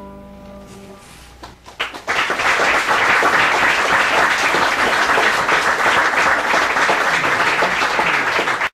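The final chord of banjo and acoustic guitar rings out and fades, then applause from a small group of listeners begins about two seconds in, with a few scattered claps swelling into steady clapping that cuts off abruptly at the end.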